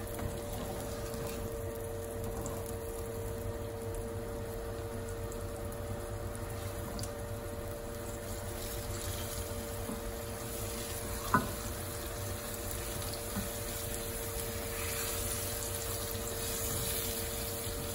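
Flour-dredged chuck roast sizzling as it sears in a very hot cast-iron skillet: a steady frying hiss that grows a little louder in the second half, over the steady hum of the range-hood vent fan. A single sharp click sounds a little past the middle.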